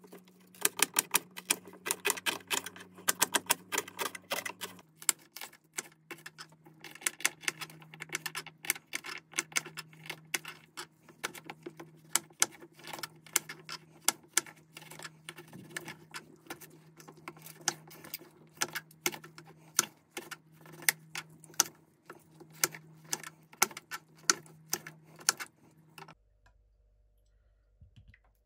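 Kitchen knife chopping onion and tomatoes on a wooden cutting board: quick, uneven knocks of the blade striking the wood. The knocking stops about two seconds before the end.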